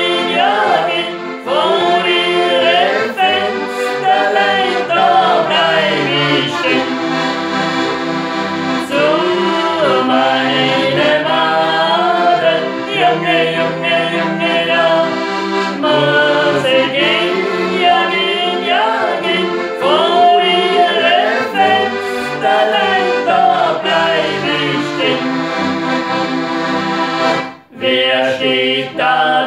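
A woman and a man singing a German folk song together, accompanied by a piano accordion and a diatonic button accordion. The music breaks off for a moment a couple of seconds before the end, then carries on.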